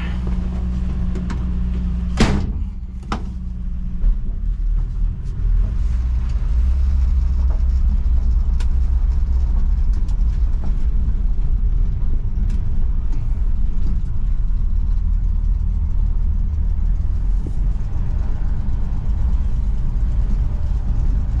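1965 Ford Falcon's engine running steadily at idle, with two sharp knocks about two and three seconds in. About four seconds in the engine takes on load and the car drives off, its engine and road noise carrying on as a louder, steady low rumble.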